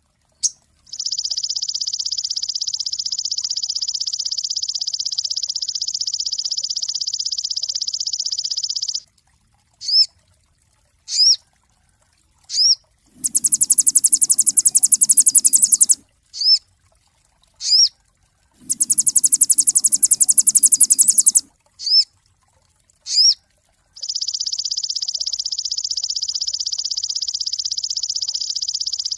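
Sogon songbird singing: long, rapid, evenly pulsed trills of several seconds each, alternating with short single rising chirps. Twice near the middle, a shriller trill carries a low buzzing undertone.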